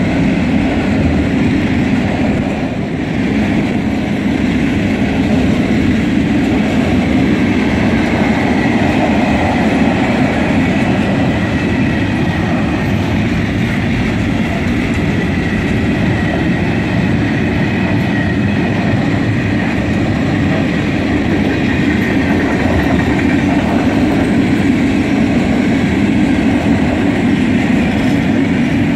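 Container wagons of a long intermodal freight train rolling past close by: a steady, loud rumble of steel wheels on rail, with a faint high tone through the middle part.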